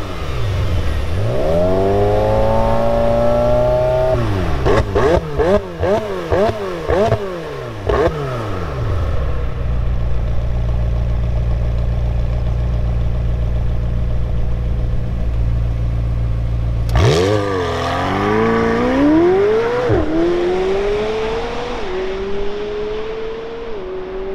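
A McLaren 720S Spider's 4.0-litre twin-turbo V8 revs while stationary: one long rise, then a string of quick blips. It then settles into a steady low note for several seconds. About seventeen seconds in, the car launches hard, and the engine note climbs through a series of quick upshifts, fading as it pulls away.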